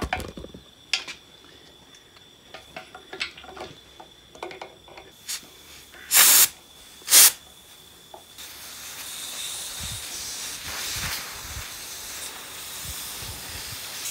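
Compressed air escaping from an air compressor's pressure switch fitting, after a few light handling clicks. Two short, loud blasts of air come about six and seven seconds in, then a steady hiss from about eight seconds on. The leak is where the air line enters the pressure switch: the line's end is too long to seal against the ring.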